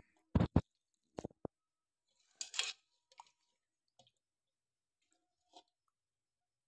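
A few short clicks and knocks, then a brief soft rustle about two and a half seconds in, from boiled spinach being handled into a steel mixer-grinder jar; the grinder is not running.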